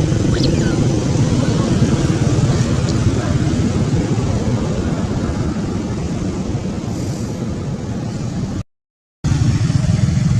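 Steady low engine noise like road traffic running throughout, cut by a brief dead silence of about half a second near the end.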